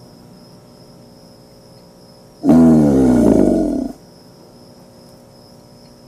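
An American alligator bellows once: a single call about a second and a half long that starts about two and a half seconds in and falls slightly in pitch. A faint steady hiss runs underneath.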